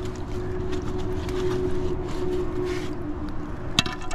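A steady droning hum with one held tone, like a nearby engine or passing traffic. Near the end, two sharp clanks as a rusty steel step plate is set down on the concrete curb.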